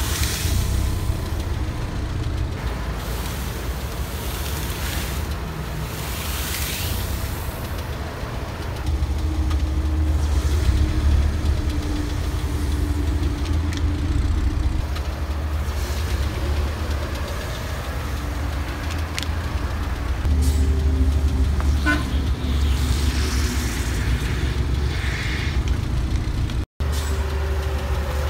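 A car's engine running at low speed while its tyre rolls onto and crushes blocks of floral foam, with a few short crunches.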